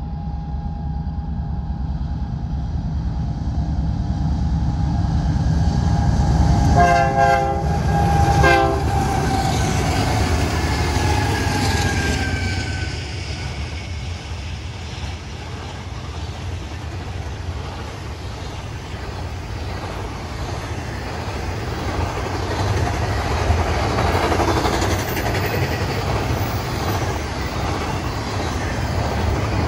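Union Pacific freight train's locomotive horn sounding for about the first twelve seconds, with two short blasts about seven and eight and a half seconds in. Its pitch falls as the locomotives pass. Then the steady rumble and wheel clatter of double-stack container cars rolling by.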